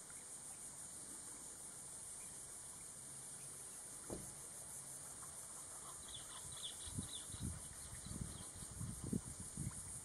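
Faint marsh ambience: a steady high insect drone, a few faint high chirps about six seconds in, and irregular low rumbles of wind on the microphone in the second half.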